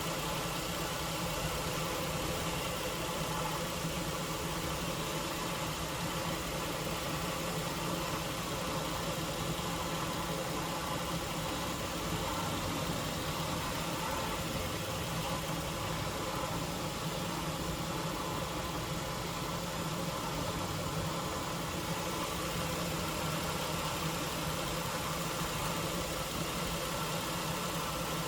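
Dodge Intrepid's V6 engine idling steadily. With new spark plugs it still runs a little off, which the owner puts down to a vacuum leak or a weak alternator.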